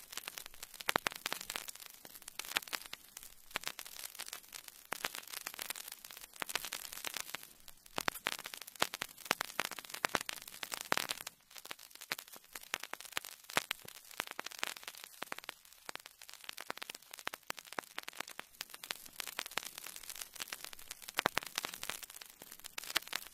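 Faint static hiss with dense, irregular crackles and pops.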